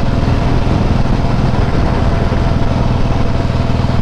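Harley-Davidson Softail Heritage's V-twin engine running steadily through aftermarket Screamin' Eagle exhausts while the motorcycle is ridden, loud and even with no revving.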